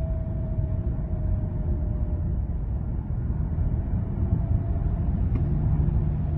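BYD Han car driving at about 70 km/h, with a steady low road and tyre rumble and a faint thin whine that dips slightly in pitch, fades about two seconds in and returns faintly near the end. The whine is the abnormal noise the car makes on speeding up to 70 km/h.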